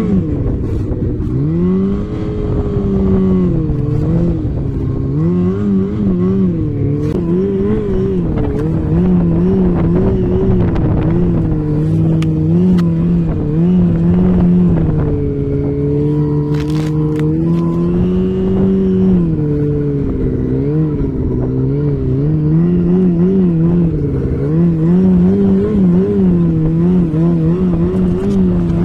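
Off-road vehicle engine running under constantly changing throttle while being ridden, its pitch rising and falling the whole time, with a few short knocks about halfway through.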